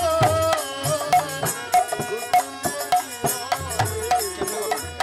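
Baul folk music: a hand drum beating a quick rhythm with deep bass strokes that bend in pitch, under a held melodic line that fades away about a second in.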